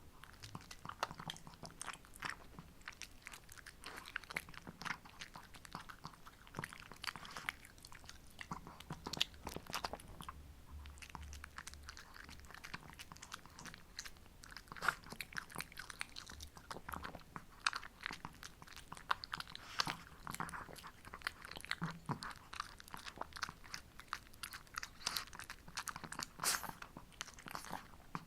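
Shih Tzu dog chewing and crunching a homemade treat: a steady run of irregular crisp bites and crackles.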